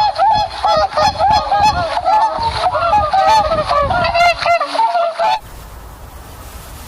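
A flock of farm fowl calling, many short overlapping calls in quick succession, cutting off suddenly about five seconds in.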